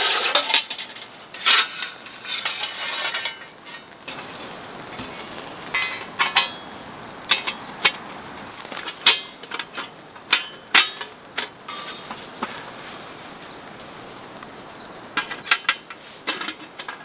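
Folding stainless-steel camping grill being unfolded and assembled by gloved hands: thin sheet-metal panels clanking and clinking against each other in scattered knocks, with a pause of a couple of seconds past the middle before more clicks near the end.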